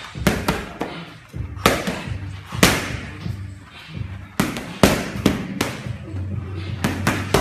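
Boxing gloves smacking into focus mitts: about a dozen sharp smacks in quick combinations of two to four.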